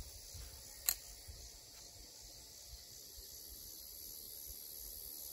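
Faint steady chirring of crickets and other insects in an open field, with some low wind rumble on the microphone. A single sharp click comes about a second in.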